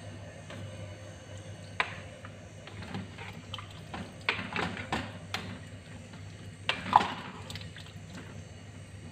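A plastic ladle stirring potato chunks and chicken in broth in a stainless steel pot: liquid sloshing, with scattered knocks of the ladle against the pot, the loudest about seven seconds in. A low steady hum runs underneath.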